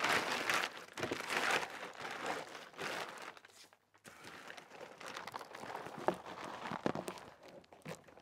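Plastic protective bag crinkling and rustling as it is pulled open and off a printer, strongest in the first three seconds, with a short lull near the middle and softer crinkles after.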